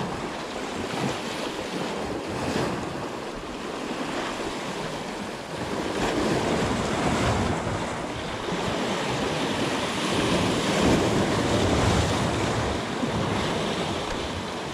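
Sea waves washing in and breaking against shoreline rocks, swelling louder a couple of times, with wind blowing on the microphone.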